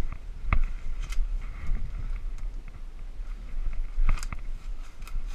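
Wind rumbling on the microphone, with a few scattered sharp clicks and knocks. The loudest click comes about half a second in, and two more come close together around four seconds in.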